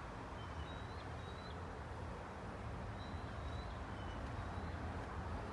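Outdoor ambience: a steady low rumble with a few faint, thin, high bird calls about a second in and again around three to four seconds in.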